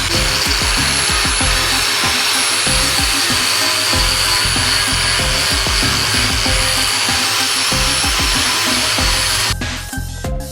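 A power tool, likely a sander working the car body, runs steadily with a high whine and hiss over electronic background music with a beat. The tool cuts off about nine and a half seconds in, leaving the music alone.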